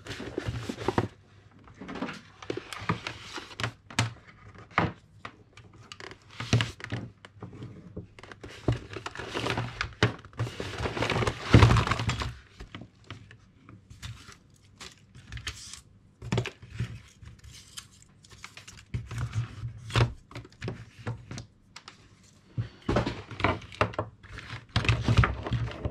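Plastic hot glue guns and their power cords knocking and clattering onto a cutting mat on a wooden desk as they are tipped out of a cloth bag and shuffled around by hand: a string of irregular thunks and rattles, the busiest and loudest about halfway through.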